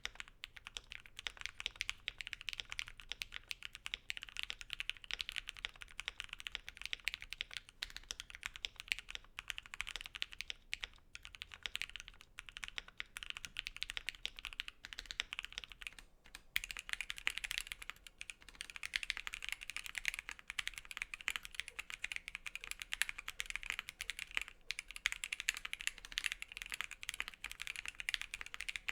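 Fast, continuous typing on a Voice65 mechanical keyboard with JWK Dogikon linear switches, many keystrokes a second, with a brief pause about sixteen seconds in.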